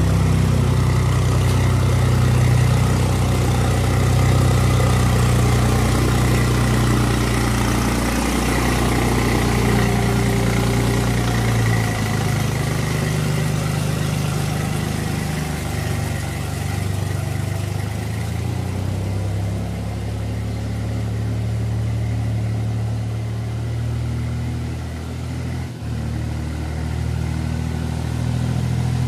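Swaraj 834 XM tractor's three-cylinder diesel engine running steadily under load as the tractor hauls a wooden leveller through a flooded, muddy paddy field on iron cage wheels. Its note shifts a little now and then, with a brief dip near the end.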